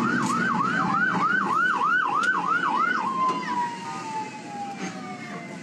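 Emergency vehicle siren in a fast yelp, rising and falling about three times a second. About three seconds in, it changes to one long tone that slowly falls in pitch. A low rumble runs underneath.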